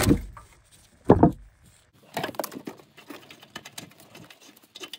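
Ratchet and oxygen sensor socket working the upstream oxygen sensor loose: two dull knocks, the second about a second in, then light, irregular metallic clicking and scraping.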